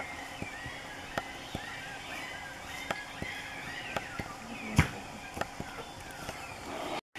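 Night forest ambience: many short rising-and-falling chirps repeat throughout, with sharp clicks and snaps at irregular intervals and one louder knock a little before five seconds in.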